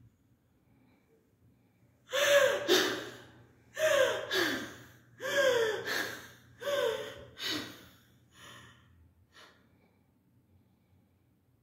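A woman gasping for breath in a run of loud, voiced gasps, mostly in pairs and each falling in pitch. They start about two seconds in, grow weaker and die away after about nine seconds: acted dying breaths.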